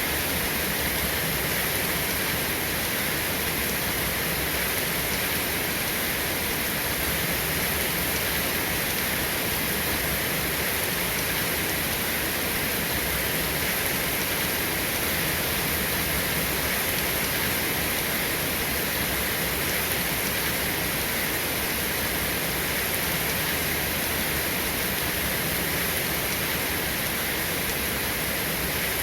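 Steady, even rain falling without let-up.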